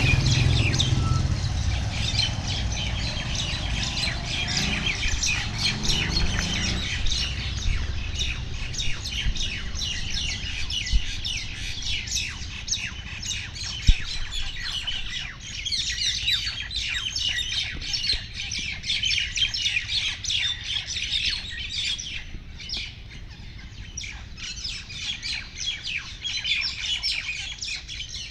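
Common mynas giving a dense, continuous chatter of harsh squawks and chirps: the aggressive calling of a myna fight. A low rumble fades out over the first several seconds, and a single sharp knock comes about halfway through.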